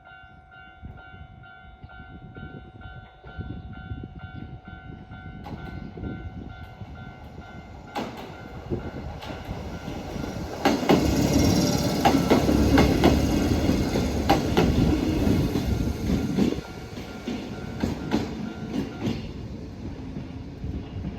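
A Japanese level-crossing bell rings in a steady repeating pulse as a Mizuma Railway train approaches. The train passes over the crossing, its wheels clacking over the rail joints, loudest about halfway through. The train noise then dies down, with the bell still ringing faintly.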